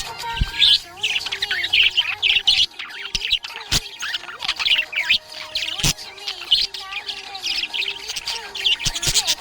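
Budgerigars chattering, with rapid chirps and squawks throughout and a couple of sharp clicks. A song plays quietly underneath.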